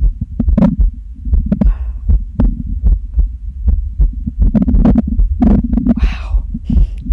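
A hungry stomach growling: a continuous low rumble with many small pops and squelches, and a longer wavering gurgle about two seconds in and another near the end.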